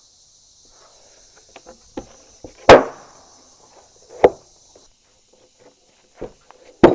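Heavy freshly sawn hickory slabs knocking and thudding as they are handled: three loud wooden knocks, the loudest a little under three seconds in with a short ringing tail, the others about a second and a half and four seconds later, with a few lighter taps between.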